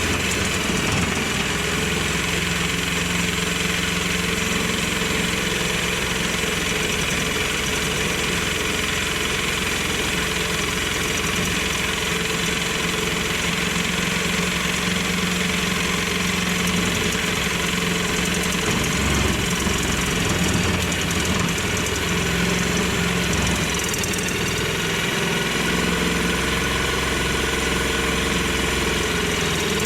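Electric workshop machine tool, most likely the pillar drill, running steadily with a constant motor hum through the whole stretch.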